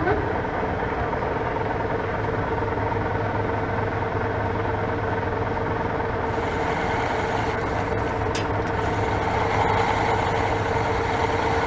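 Metal lathe starting up and running at a reduced spindle speed set for parting off: a steady motor and gearbox hum with a couple of steady tones. A faint high whine joins about six seconds in.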